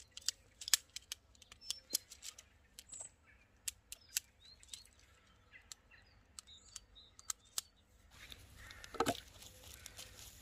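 Light, sharp clicks and taps as the sections of a thin 7 mm alloy tent pole are fitted together, with a louder knock about nine seconds in. Faint bird chirps sound in the background.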